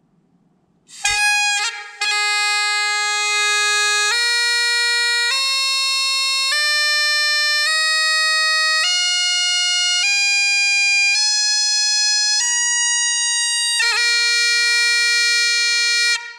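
Highland bagpipe chanter (a McCallum plastic chanter with a Chris Apps reed), mouth blown without the drones, played up the scale. It holds low G for about two seconds, then climbs note by note to high A, about a second per note. Near the end it drops with a quick grace note to low A and stops abruptly, very loud at about 104 to 106 dB a couple of feet away.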